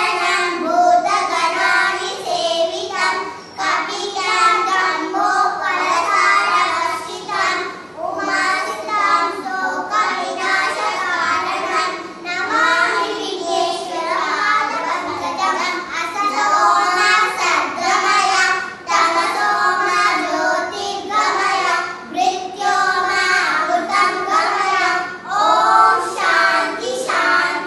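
Young girls' voices chanting a shloka together in a sing-song recitation, with short pauses between lines.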